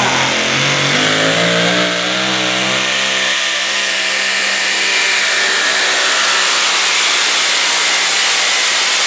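Supercharged Hemi V8 of a super modified four-wheel-drive Dodge pulling truck running flat out under load as it drags the pulling sled, its pitch climbing over the first few seconds and then holding high and steady.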